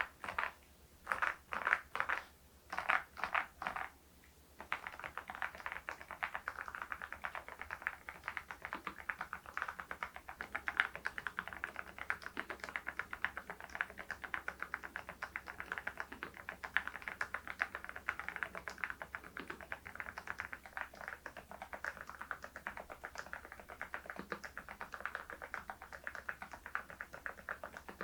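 Typing on an RK R99 mechanical keyboard fitted with HMX V0-SS switches. A few short clusters of keystrokes come in the first four seconds, then steady, continuous typing follows.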